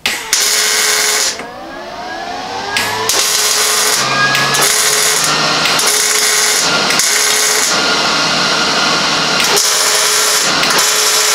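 MIG welder laying short beads to weld a 1-inch bar across a truck chassis frame: the arc's steady crackling buzz comes in runs of one to two seconds, with brief stops between beads.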